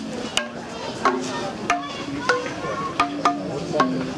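Wooden sound installation of large hanging planks being struck with a beater: a string of hollow wooden knocks at different pitches, each ringing briefly, roughly two a second.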